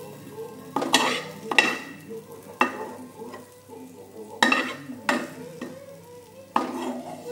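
Spatula scraping and knocking against a wok as fried noodles are stirred and tossed: about six sharp strokes at uneven intervals.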